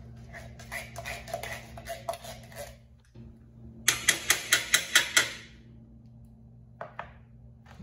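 Metal spoon scraping and tapping inside a tin can while pumpkin is dug out. Softer scraping comes first, then a quick run of about ten sharp clicks about four seconds in.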